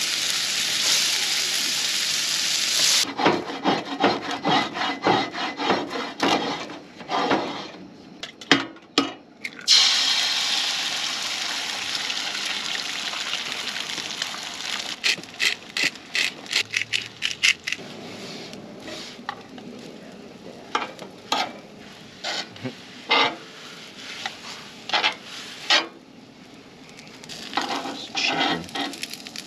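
Food sizzling on a griddle over a Coleman propane camp stove, with a metal spatula scraping against the griddle in runs of quick strokes. A fresh surge of sizzling comes about ten seconds in, and an egg is frying in the later part.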